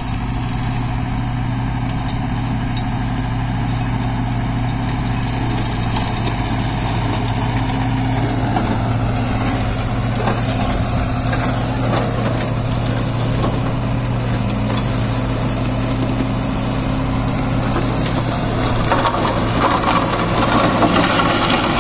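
Deutz-Fahr Agrolux 80 tractor's four-cylinder diesel running steadily under PTO load, driving a Maschio Terminator 180 shredder that chops crop stalks. The rough shredding noise grows louder near the end.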